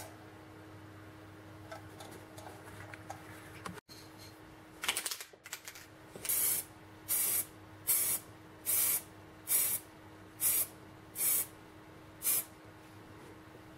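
Liquid sprayed from a sprayer onto a surface: a sputtering hiss about five seconds in, then eight short, evenly spaced bursts of hiss, roughly one every 0.8 seconds.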